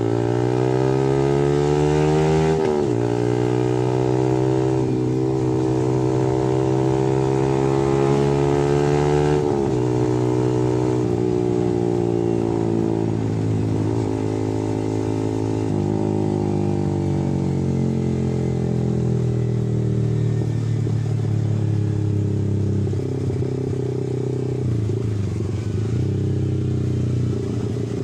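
Yamaha R15 V3's 155 cc single-cylinder engine through an aftermarket R9 racing exhaust, pulling up through the gears with a shift about three seconds in and another about nine and a half seconds in. It then eases off and cruises at steady, lower revs.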